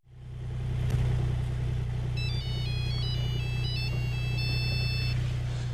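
Mobile-phone ringtone: a quick beeping melody of single high notes, starting about two seconds in and ending on a held note. Underneath runs a steady low hum from the motorboat's engine.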